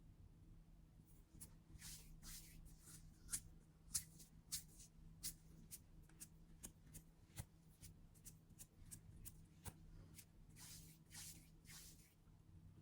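Faint, irregular crisp ticks and short rustling swishes, sometimes several a second, over a low steady hum.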